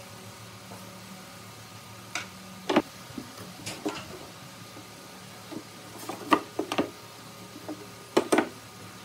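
Hardwood moulding strips and a carved frame panel knocking and clacking against each other and a wooden board as they are handled and test-fitted. The knocks are short and sharp and come in clusters, with two or three close together about a third of the way in, again about two-thirds in, and near the end. A steady low hum runs underneath.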